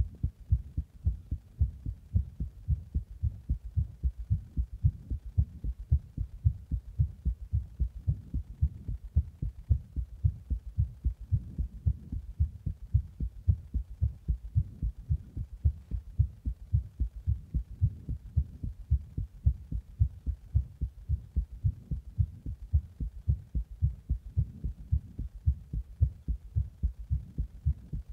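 A human heart beating, recorded close up: a steady, even train of low beats, about two a second. The heart was recorded after a Monster energy drink and compression.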